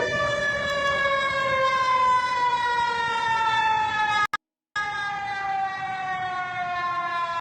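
Emergency alert siren: a long, harmonic-rich tone gliding slowly downward in pitch. It breaks off briefly about four seconds in, resumes higher and falls again, then cuts off abruptly.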